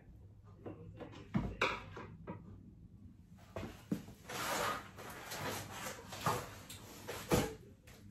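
Handling noise around a wall cabinet being fitted: light knocks and clicks on the cabinet in the first two seconds, then several seconds of rustling and shuffling with scattered knocks, and one sharp knock about seven seconds in.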